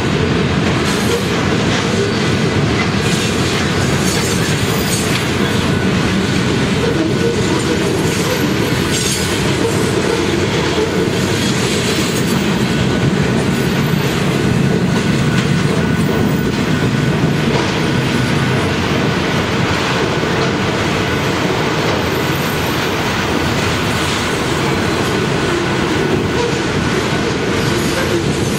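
Union Pacific mixed freight train's cars rolling steadily past close by, wheels clattering over the rail joints in a continuous clickety-clack.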